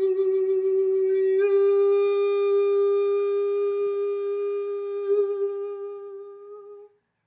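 Solo voice singing a cappella, holding the song's final note on "you" at one steady pitch for about seven seconds. It wavers slightly near the end, fades, and stops abruptly.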